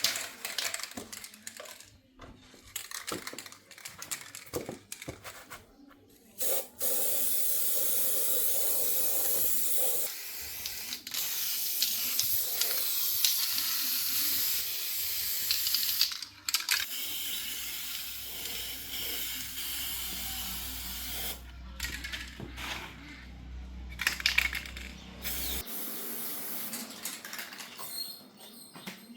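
Compressed air hissing from a nozzle in long stretches with short breaks, among scattered clicks and knocks. A low steady hum runs beneath it for several seconds in the second half.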